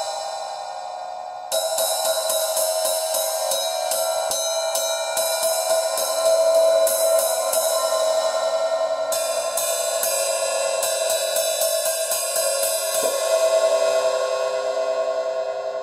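Paiste 2002 14-inch hi-hat played with a stick: a stroke left ringing, then quick strokes about four a second with a bright metallic ring. Near the end it is left to ring and fade.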